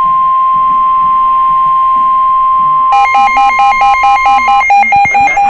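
NOAA Weather Radio 1050 Hz warning alarm tone: a loud, steady single tone that signals a warning is about to be read out. It stops about four and a half seconds in. From about three seconds in, a rapidly pulsing electronic alarm beep, about four beeps a second, sounds over it.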